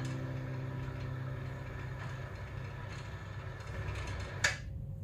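Acoustic guitar background music fading out, leaving a low, steady rumble, with a single sharp click about four and a half seconds in.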